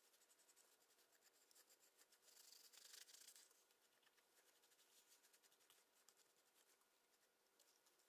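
Very faint rubbing and scratching of a cloth wiping over a painted plastic model kit, wiping off a dark acrylic wash. It is a little louder for about a second near three seconds in.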